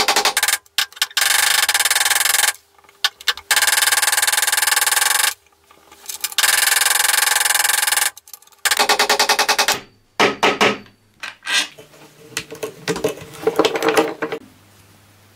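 Small Stanley hammer tapping fast on a steel screw set in a drill chuck's nose, knocking the chuck off its B12 taper spindle: ringing metallic taps in about five rapid bursts, then a few looser clicks and knocks of the loosened metal parts near the end.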